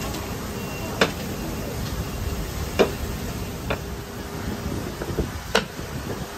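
Four short sharp knocks or clicks, spaced irregularly, over a steady low background noise.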